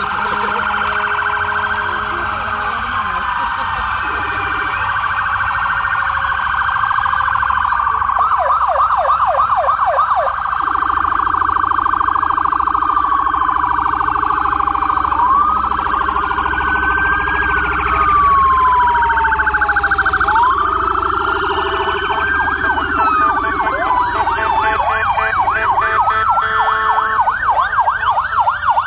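Several police sirens sounding at once as police vehicles pass. Slow rising-and-falling wails overlap with fast yelping sweeps, which come in about a third of the way through and again near the end.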